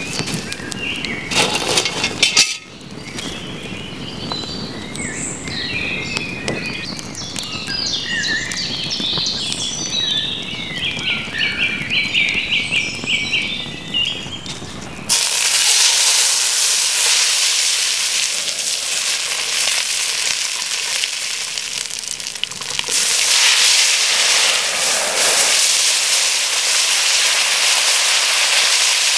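Wood campfire crackling and popping, with birdsong in the background. About halfway through it gives way to a loud, steady sizzling hiss from food cooking in a steaming cast-iron Dutch oven set on the coals.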